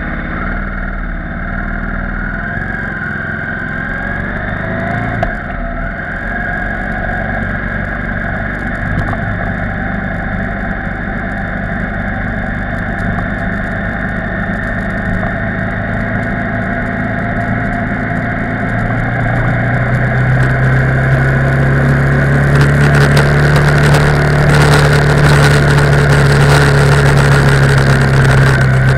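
KTM 990 Supermoto R's LC8 V-twin engine running while the bike is ridden, with wind and road noise, growing louder about two-thirds of the way through. A brief knock about five seconds in.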